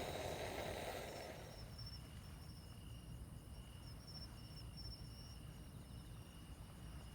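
Insects trilling in pulsing bursts, one high-pitched and one a little lower, over a low steady rumble. A hissing noise before them fades out about a second in.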